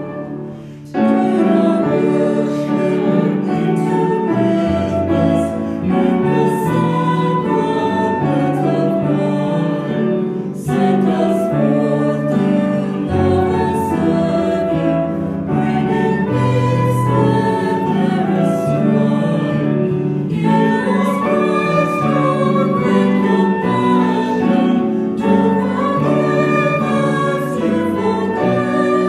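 Choir singing a hymn with instrumental accompaniment, the lines broken by short pauses about every ten seconds.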